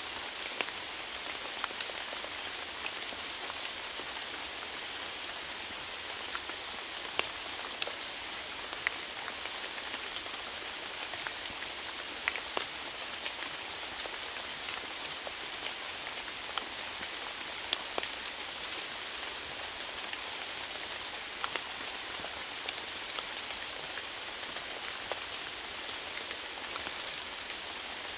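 Steady rain falling on a surface, a constant hiss with scattered sharper drops landing close by.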